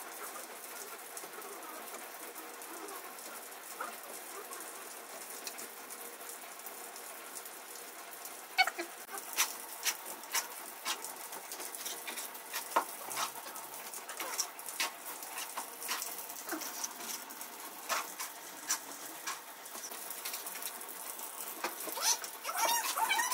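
Faint steady room noise, then from about eight seconds in, irregular light taps, clicks and scrapes of hand tools working at a brick wall and the water pipe being set into it, busier near the end.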